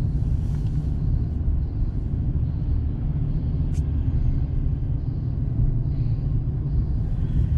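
Steady low rumble of road and engine noise inside a Ram 1500 pickup's cab while driving, with a single brief tick about halfway through.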